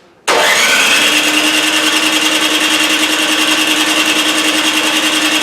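Snow blower's electric starter motor cranking the engine: a steady, high whirr that starts suddenly and holds an even pitch without the engine catching. The engine won't start unchoked.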